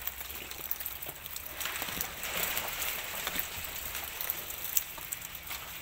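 A mass of catfish (lele) wriggling and slapping against each other in shallow water as a hand net scoops among them: a steady wet crackle of small slaps and splashes that swells a couple of seconds in.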